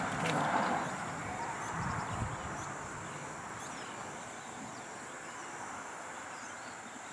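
Rural outdoor background: a steady hiss with faint bird chirps, and a brief rustling noise in the first second.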